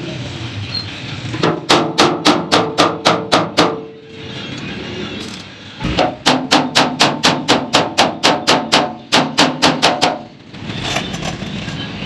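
Hand hammer striking a steel-sheet concrete mixer drum shell in two quick runs of about five ringing metal blows a second, the second run about twice as long as the first. Near the end the crackling hiss of arc welding on the shell begins.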